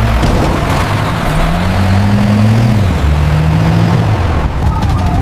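Vehicle engines driving at speed under a rush of road noise. One engine revs up and then settles, and a siren starts wailing again near the end.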